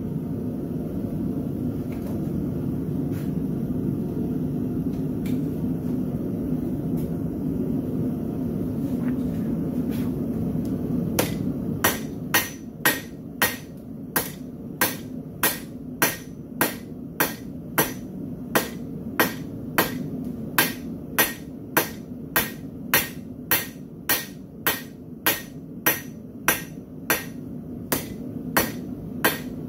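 A steady low noise with no strikes for about the first eleven seconds. Then a blacksmith's hammer strikes a red-hot bar on the anvil face in an even rhythm of about two blows a second, drawing out a smooth taper on the hoof pick.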